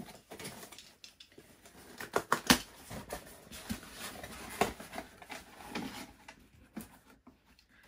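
Cardboard delivery box being opened with a box cutter: irregular clicks, scrapes and rustles of the blade, tape and flaps, with the packaging handled as a small boxed toy is lifted out.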